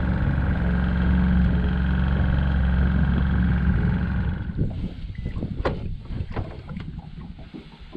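A small boat motor runs with a steady low hum and a high whine, then cuts out about four and a half seconds in. After that comes water lapping, with irregular light knocks against the boat.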